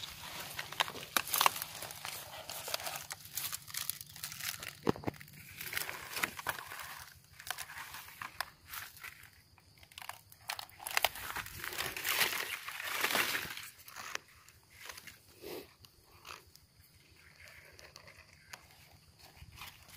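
Footsteps and rustling through grass and dry leaf litter, with irregular crunches and crackles of dry leaves underfoot; quieter after about two-thirds of the way through.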